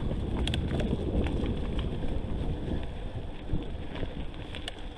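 Wind buffeting the microphone as a low rumble, with scattered sharp clicks and rattles from a Scott eSpark 720 e-mountain bike rolling downhill over a rough trail. The rumble eases about halfway through.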